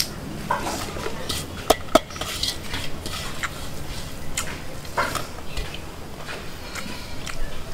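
Eating rice by hand from a metal plate: fingers scraping and tapping the plate as the rice is gathered into balls, with two sharp clicks a little under two seconds in, and chewing between.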